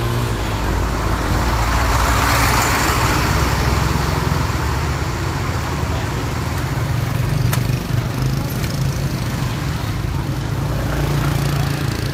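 Street traffic with motorbike engines running close by as a steady low rumble. A rushing noise swells and fades about two to four seconds in, and there is a single sharp click a little past halfway.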